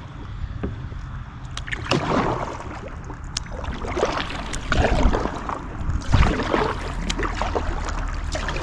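Kayak paddle strokes: the blades dipping and splashing in the water with drips, in irregular surges every second or two.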